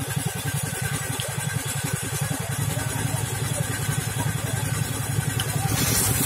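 Small stationary engine at a tube well runs steadily with an even low pulse. About five and a half seconds in, the rush and splash of water gushing up out of the well casing joins it.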